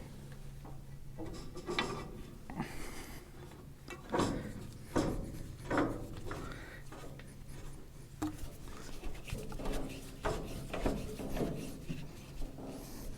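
Hand work on a Farmall 140's steering as a part is reinstalled: scattered scrapes, rubs and light knocks of metal parts and tools, a few sharper ones about four to six seconds in, over a faint steady low hum.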